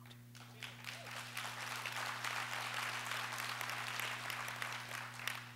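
Audience applauding, swelling over the first couple of seconds and dying away near the end.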